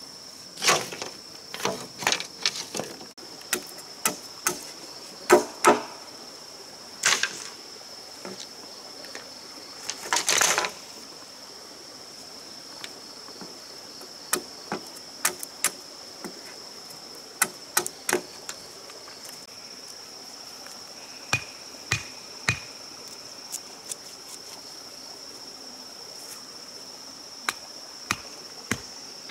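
Machete chopping and splitting green bamboo: irregular sharp knocks and cracks, with a longer splitting crackle about ten seconds in and fewer strikes later. A steady high insect drone runs underneath.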